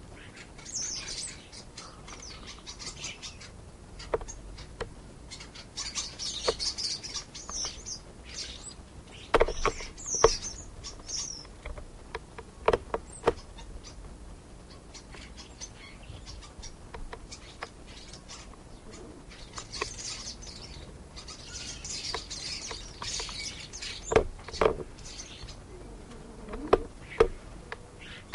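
European starlings calling with a run of high chirps and whistles in several stretches, broken by short sharp knocks and taps that are the loudest sounds, some in quick pairs.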